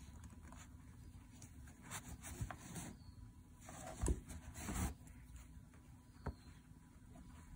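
Faint rustling and scraping of hand embroidery: a needle and thread woven under stitches on fabric stretched in a wooden hoop, the thread drawn through and the fingers brushing the cloth. A few louder short scrapes come about two, four and five seconds in.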